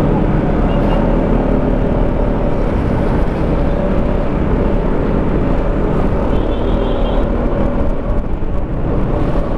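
Yamaha XMAX 300 maxi-scooter's single-cylinder engine running steadily at road speed under heavy, even wind noise on the microphone.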